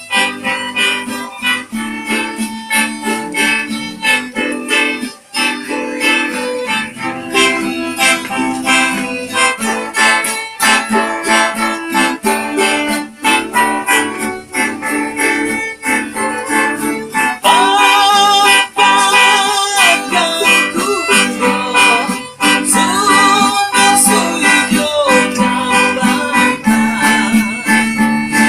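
Live acoustic music, unedited and without effects: a plucked guitar accompaniment with a melody carried over it. The melody wavers and grows stronger from about halfway through.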